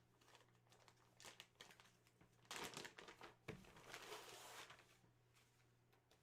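Faint crinkling and rustling of a jersey and its packaging being handled, louder in two stretches in the middle, with a single sharp tick about three and a half seconds in.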